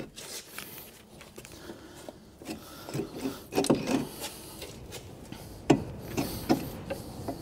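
Metal car suspension parts being handled by hand at a front wheel hub: scattered clicks, knocks and rubbing of metal on metal, with a couple of sharper knocks.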